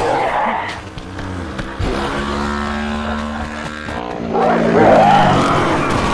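Car engine sound effect revving as the car pulls away, its pitch wavering and loudest about two-thirds of the way through.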